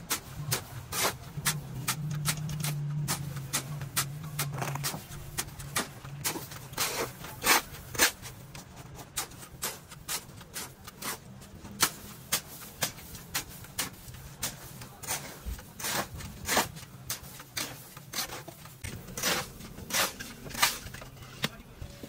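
Work noise in a concrete pipe factory: sharp, irregular clicks and knocks, about two or three a second, over a low steady machine hum that is louder for the first few seconds.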